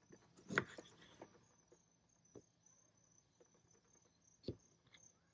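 Kitchen knife slicing a lemon on a wooden cutting board: a few faint knocks of the blade against the board, the sharpest about four and a half seconds in.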